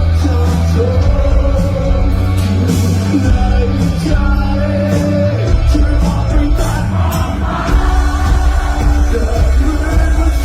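Rock music with a sung vocal and a heavy bass beat.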